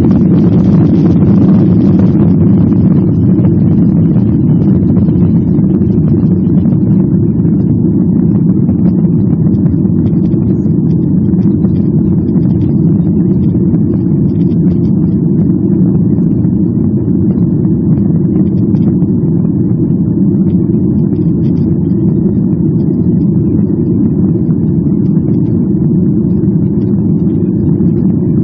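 Steady cabin noise of a Boeing 737-900 climbing after takeoff: its CFM56-7B jet engines and airflow heard from inside the cabin, a deep even rumble, with a brighter hiss that eases off over the first two seconds.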